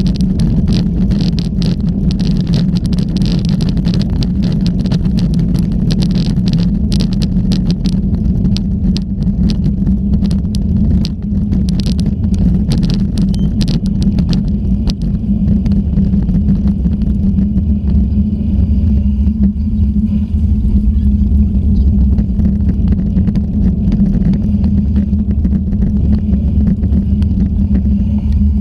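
Wind rumble on the microphone of a GoPro riding on a bicycle, with tyre noise on a wet road and frequent rattling clicks from the bumpy ride. The clicking thins out after about fifteen seconds, leaving a steady low rumble.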